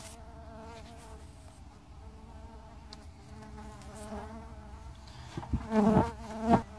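Bumblebee buzzing in flight, a steady droning hum with a wavering pitch. It is a defensive bee trying to sting. Near the end the buzz swells sharply louder twice.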